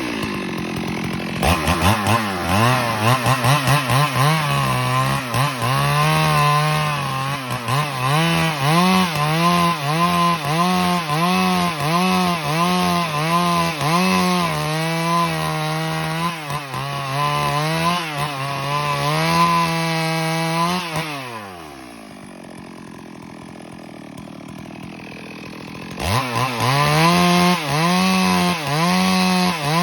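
Stihl MS382 two-stroke chainsaw ripping a timber lengthwise, its engine note rising and falling steadily under load as it cuts. About two-thirds of the way through the revs drop away to a quiet idle for a few seconds, then the saw revs up and cuts again.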